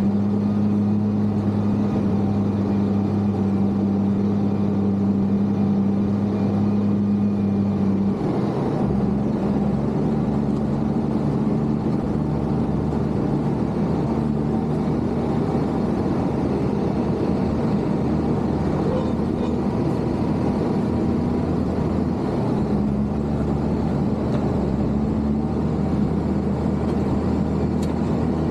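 Case motor grader's diesel engine running steadily. About eight seconds in its note changes, turning rougher with a deeper rumble.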